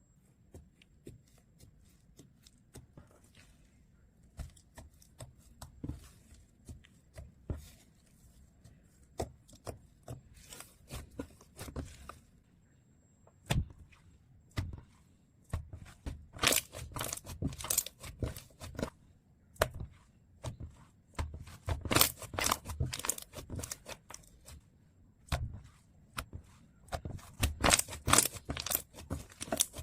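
Snow slime being squeezed and stretched by hand, giving irregular crackling clicks and pops. The clicks are sparse and soft at first, then louder and denser from about halfway in.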